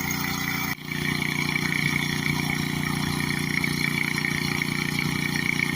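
Gas-engine pressure washer running steadily at a constant pitch, dropping out briefly for a moment under a second in.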